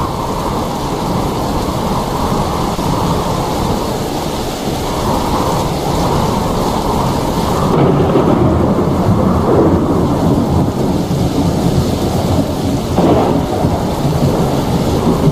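Heavy rain falling with a deep rumble of thunder, which swells louder about eight seconds in.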